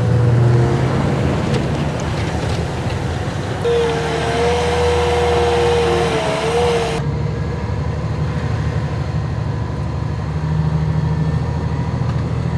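Motor vehicle engines running steadily, with a wavering whine from about four to seven seconds in; the high hiss drops away suddenly about seven seconds in.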